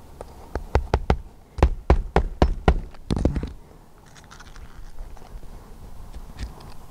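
Hammer driving roofing nails through an asphalt shingle into the roof deck: a quick run of about a dozen sharp blows in the first three seconds or so, followed by quieter handling and faint taps.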